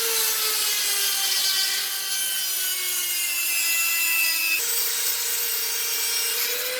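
Rotary tool with a cutting disc, running at high speed and cutting through an aluminium tube: a high whine over a gritty hiss. The whine sinks slowly in pitch as the disc bears into the metal, jumps back up about two-thirds through, and climbs again near the end.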